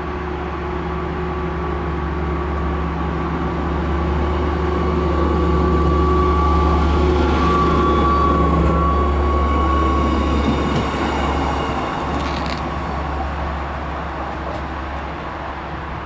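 GTW 2/6 diesel-electric railcar running slowly past as it arrives at the platform: a steady engine hum with a higher whine, swelling to its loudest as it passes close by in the middle, then fading as it draws away.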